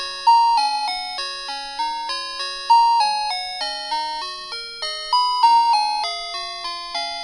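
Background music: a simple melody of struck, chime-like notes, each fading after it sounds, about three or four a second, looping.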